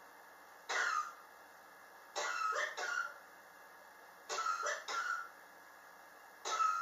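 A person coughing repeatedly: a single cough, then two double coughs, then another cough starting near the end, coming about every two seconds. It is a long-standing chronic cough, which the person blames on extreme temperature changes in their apartment.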